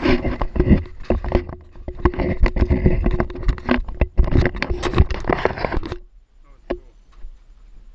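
Zipline trolley running fast along the cable, a steady hum under wind rushing over the microphone and clattering knocks, which stops about six seconds in as the trolley comes to a halt at the end of the line.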